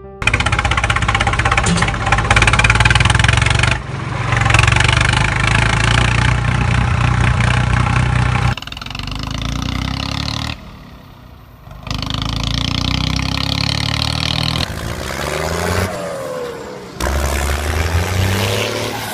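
Tractor engine sound effect running and revving, cut together in several abrupt segments, with falling and rising revs near the end.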